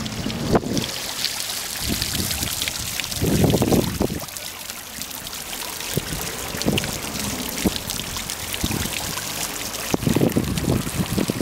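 Water from a stone fountain splashing and trickling into its basin in a steady patter. Low rumbles rise over it about three seconds in and again near the end.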